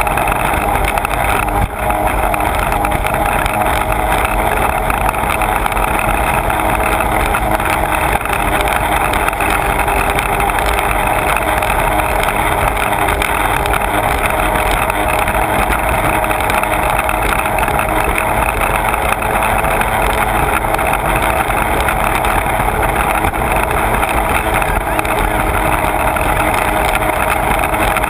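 Sea-Doo personal watercraft running steadily at speed, its engine drone mixed with the rush of spray and water over the hull, heard from a camera mounted on the craft's nose.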